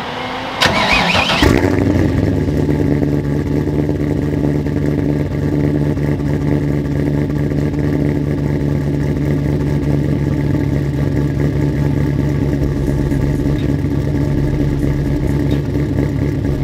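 Cold start of a cammed LS1 5.7 V8 (LS2 heads, BTR camshaft), heard at the exhaust tailpipe. It cranks and catches about a second in with a rising rev flare, then settles into a steady fast idle with the choppy lope of the cam.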